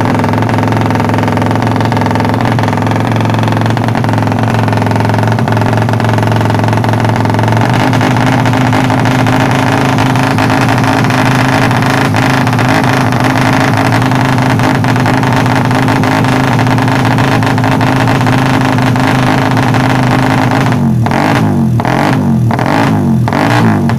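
Suzuki Satria FU single-cylinder four-stroke engine, ported and tuned as a "porting 155", running at a steady fast idle while warming up, settling a step higher about 8 s in. Near the end the throttle is blipped repeatedly, about twice a second.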